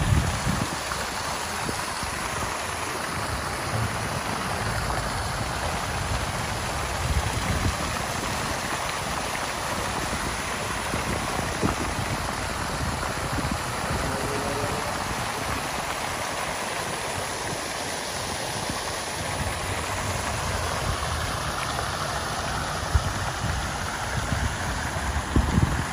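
Outdoor fountain running: many water jets arcing up and splashing down into a round basin, a steady rushing splash. Irregular low rumbles sit underneath, with a few brief knocks near the end.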